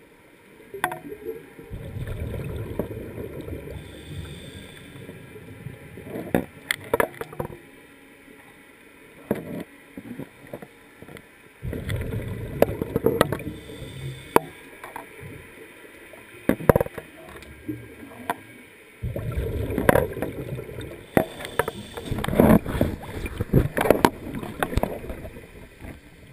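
Muffled water sloshing against an underwater camera housing, in three long stretches of low rumbling, with many sharp knocks and bumps on the housing throughout.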